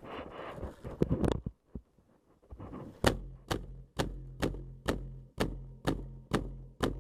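HPA-powered airsoft rifle firing single shots in a steady rhythm, about two a second, nine in a row, starting about three seconds in. Before the shots come rustling and a few handling clicks.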